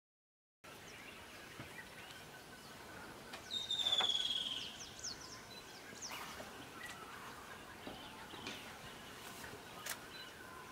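Rainforest ambience: birds calling over a steady background hiss, with a loud trill that falls in pitch about three and a half seconds in and scattered short chirps and whistles.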